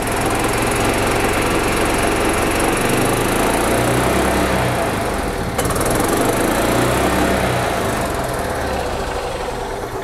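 A 1999 Club Car DS golf cart's single-cylinder four-stroke gas engine runs fast without choke. The governor is turned up to the maximum, so the engine is hitting the rev limiter. The sound sags slightly, then picks back up about halfway through.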